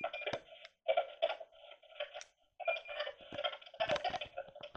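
A spirit box sweeping rapidly through radio frequencies, giving choppy, stop-start fragments of radio sound and light static through its small speaker, with a brief dead gap about two and a half seconds in.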